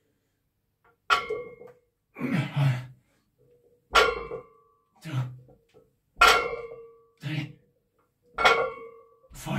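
Deadlift reps with a loaded barbell: four times, the plates touch down on the floor with a sharp metallic clank that rings briefly. Each touch-down is followed about a second later by a short, forceful breath or grunt on the pull.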